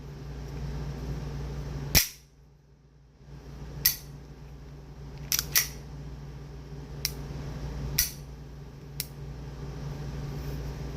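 Beretta 92 Compact pistol's all-metal action being worked during a function check. A loud metallic snap about two seconds in, then a series of sharper clicks, including a close pair near the middle and single clicks spaced about a second apart toward the end.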